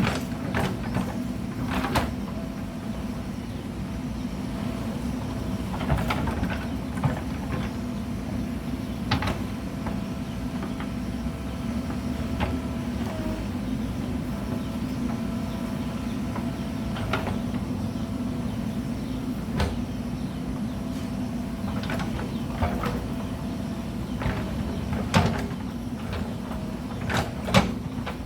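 Mahindra backhoe loader's diesel engine running steadily while it works, with scattered sharp knocks and clanks, the loudest near the end.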